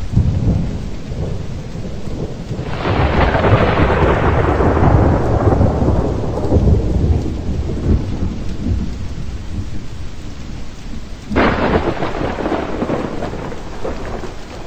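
Thunderstorm: steady rain with two claps of thunder. The first breaks about three seconds in and rumbles away over several seconds; the second strikes suddenly about eleven seconds in.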